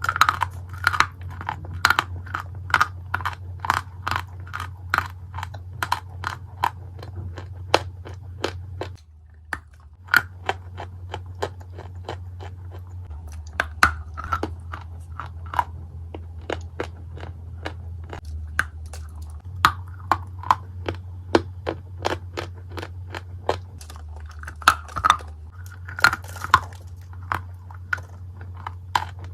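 Dry Turkestan clay being bitten and chewed close to the microphone: sharp crunches come about two a second, with a brief pause about nine seconds in. A steady low hum runs underneath.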